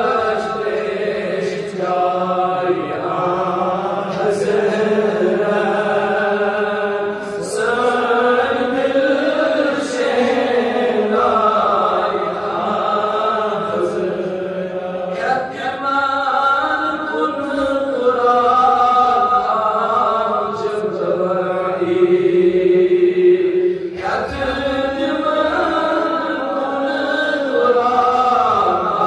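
A man's voice chanting an Islamic devotional recitation into a microphone, in long drawn-out melodic phrases that rise and fall.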